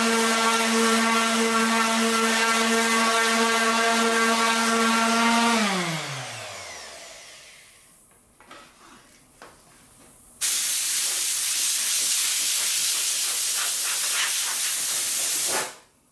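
Random orbital sander running on a plywood panel, then switched off, its whine falling in pitch as it spins down. A few faint knocks follow, then a loud steady hiss of about five seconds that cuts off sharply.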